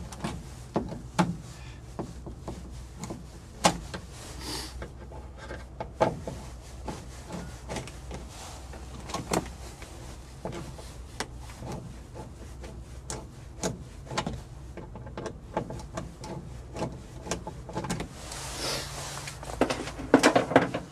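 Irregular clicks, taps and knocks of hands and tools working on a Volkswagen bus front door, taking out the interior grab handle, with a longer rubbing scrape near the end.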